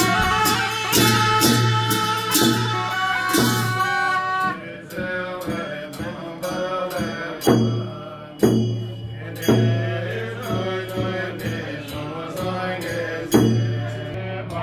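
Buddhist lamas' ritual puja music: chanting with sustained horn notes over a steady beat of percussion strikes, about two strikes a second at first and then slowing to about one a second.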